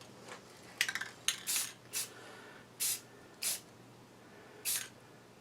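Aerosol spray paint can spraying primer in several short hissing bursts, roughly a second apart.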